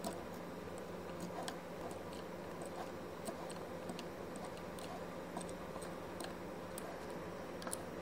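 Small, irregular plastic clicks and taps as the parts of a washing machine pressure switch are handled, over a steady faint hum.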